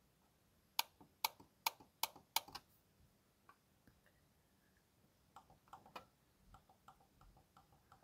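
Logitech computer mouse middle buttons being clicked: about six sharp clicks roughly half a second apart in the first few seconds, then a run of fainter, softer clicks in the second half.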